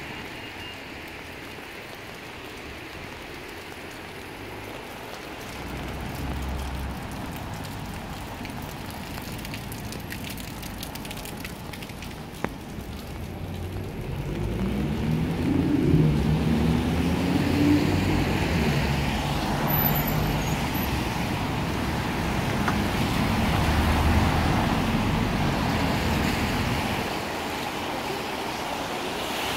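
Road traffic on a wet road in the rain: a steady hiss, then about halfway through a vehicle passes close with its engine rising in pitch as it speeds up and its tyres hissing on the wet surface, fading again near the end.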